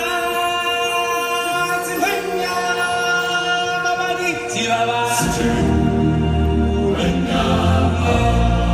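Show music: a choir singing long held notes, joined about five seconds in by deep bass notes.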